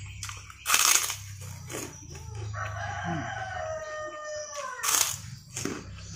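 Two loud crunches of a crisp fried cracker (kerupuk) being bitten, about a second in and again about five seconds in. Between them a rooster crows once, a long call of about two seconds that falls away at the end.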